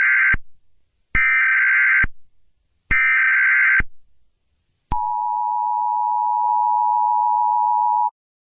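Emergency Alert System tones: the end of one short burst of warbling digital SAME header tones and two more bursts about a second apart, then the steady two-tone EAS attention signal held for about three seconds before cutting off.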